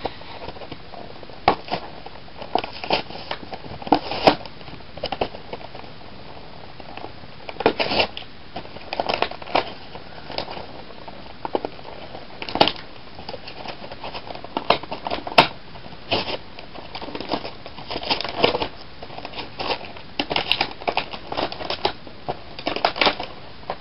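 Toy packaging being opened by hand: irregular crackling and crinkling, with short tearing sounds and quiet gaps between handfuls.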